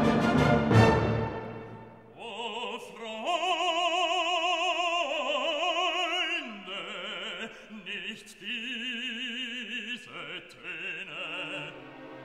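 Operatic singing with orchestral accompaniment. An orchestral chord dies away in the first two seconds, then a solo voice sings long, held notes with a wide vibrato, stepping down in pitch.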